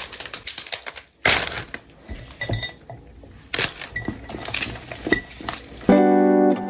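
Cut carnations being set into a glass jar vase: stems and hands clink and knock against the glass, with a few short rings and rustling of the cellophane wrapping. Acoustic guitar music comes in near the end.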